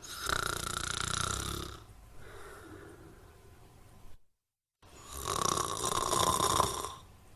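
A person snoring: two long snores of about two seconds each, the first right at the start and the second about five seconds in. A quieter breath trails after the first, and a short stretch of dead silence comes between them.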